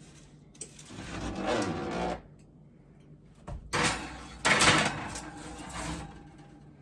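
A metal baking pan scraping and clattering against an oven rack as it is slid into a hot oven, in two noisy bouts with sharp metal clanks in the second.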